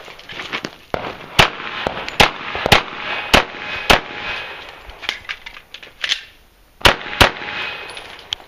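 Pistol shots from a .45 ACP handgun fired in a practical-shooting course of fire: a string of five shots, a pause of nearly three seconds while the shooter moves to the next position, then a quick pair.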